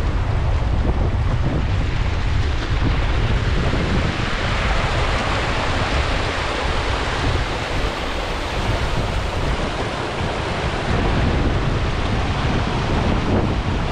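Steady rush of river water spilling over a low concrete weir, with wind buffeting the microphone as a low rumble.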